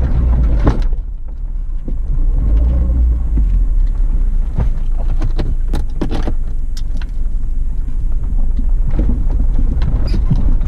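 Low engine and road rumble heard inside the cabin of a 2006 Suzuki Grand Vitara 2.0 driving over a rough dirt track, with scattered knocks and rattles as it goes over the bumps.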